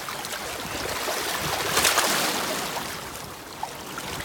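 Shallow river water splashing and sloshing around a sturgeon held by the tail and let go in the shallows, swelling about two seconds in, then easing off.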